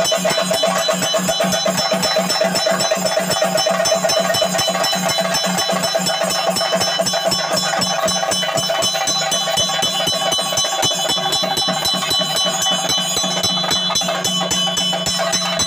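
Theyyam ritual percussion: chenda drums beaten in a fast, unbroken rhythm, with metal hand cymbals (elathalam) clanging and ringing over them.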